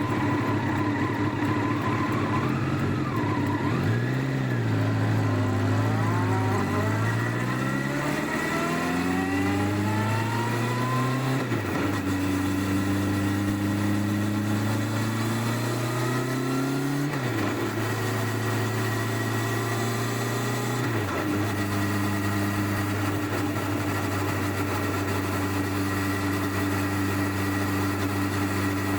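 Stock-exhaust Honda CBR1100XX Blackbird's inline-four engine, heard from under the rear seat, pulling away and accelerating. Its pitch climbs through the gears and drops sharply at three gear changes, then it settles into a steady cruise for the last several seconds.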